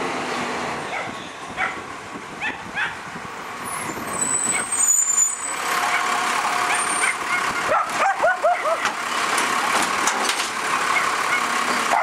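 Automated side-loader garbage truck running close by, its hydraulics working as the arm grabs and lifts a wheelie bin. About 8 seconds in, a quick run of short barks cuts through.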